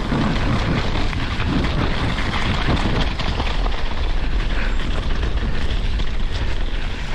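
Wind buffeting the microphone in a steady low rumble, over the crunching and rattling of a mountain bike rolling fast down a loose gravel trail.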